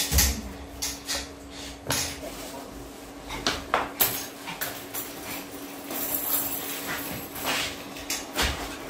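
Scattered short knocks and clicks over a steady low hum.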